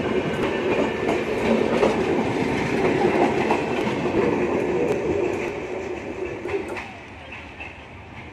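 Passenger coaches of the Humsafar Express rolling past close by: a steady rumble of wheels on rails with scattered clicks. The sound drops away about seven seconds in.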